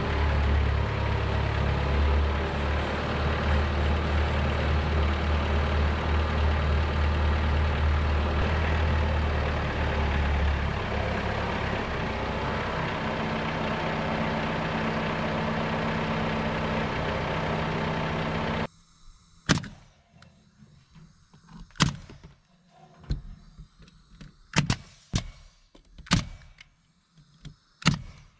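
John Deere compact tractor's diesel engine running steadily, its low hum changing about ten seconds in. It cuts off abruptly, and a pneumatic coil nailer then fires about eight sharp shots, a second or two apart, driving nails into a trim board.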